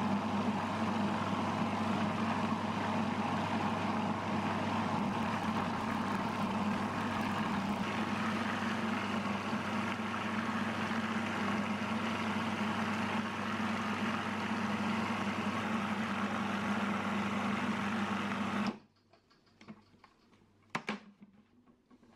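Food processor motor running steadily, its blade churning ground hazelnuts into nut butter, then stopping abruptly a few seconds before the end. A few light clicks and knocks follow as the plastic lid is handled.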